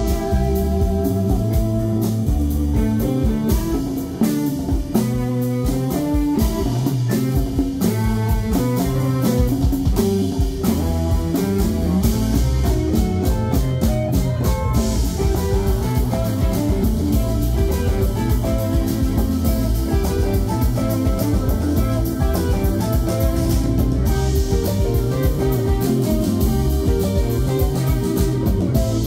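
Live band music: an electric guitar plays melodic lead lines over a steady drum kit beat.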